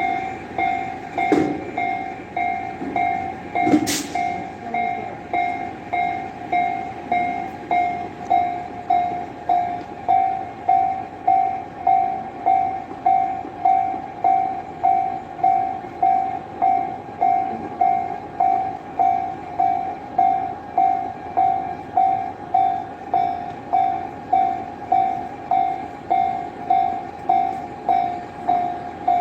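Japanese railway level-crossing warning alarm ringing steadily, about three dings every two seconds. Two sharp knocks cut through it about one and four seconds in, the second the loudest.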